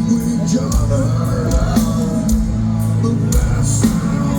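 A heavy metal band playing live: distorted guitars and bass holding low notes, with drums and repeated cymbal crashes.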